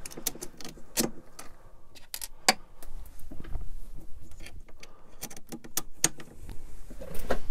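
3D-printed plastic parts being handled and fitted together on a printer's carriage by hand: irregular sharp clicks, taps and light rattles of plastic against plastic and metal.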